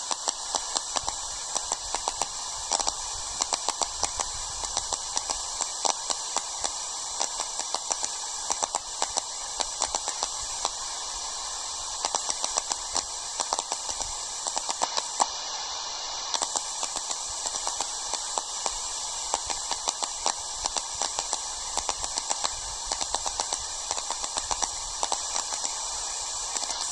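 Radio receiver tuned to the aircraft band giving only static: a steady hiss with frequent crackling clicks, and no transmission coming through.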